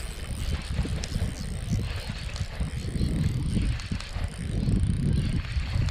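Shimano Stradic Ci4+ spinning reel being cranked, its gears and bail whirring with a fine ticking, over a heavy uneven rumble of wind buffeting the microphone.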